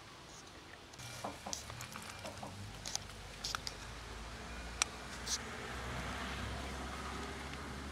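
A cat eating dry kibble from a plastic tub: scattered sharp crunches and clicks. Under them, a low steady rumble begins about three seconds in.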